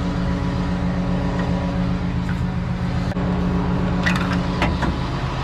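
Rollback tow truck's engine idling steadily while a wheel strap is tied down on the bed, with a few sharp ratchet clicks around four seconds in.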